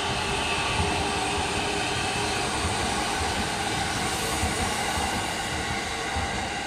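JR East E233-3000 series electric multiple unit running past: steady wheel-on-rail rumble with a set of held tones above it, easing off near the end as the last car goes by.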